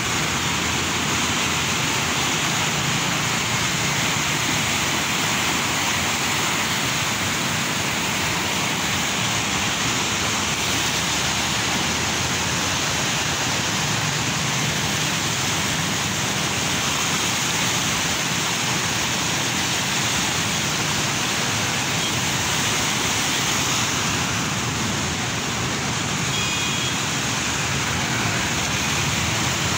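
Steady rushing of a fast-flowing, swollen river in flood: muddy floodwater churning past a bridge, an unbroken loud wash of noise.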